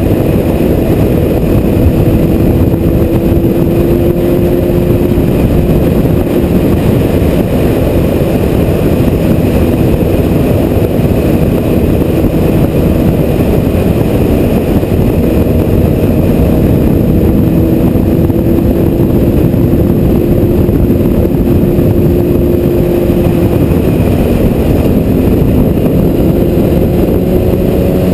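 Honda CBR1000RR sportbike's inline-four engine cruising steadily, heard on board the bike, its note drifting slowly up and down with the throttle. A heavy, steady rush of wind and road noise lies over it.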